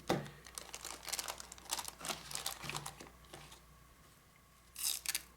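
Plastic packaging crinkling and rustling as it is handled, with scattered light clicks; it dies away about three and a half seconds in, and a short louder rustle comes near the end.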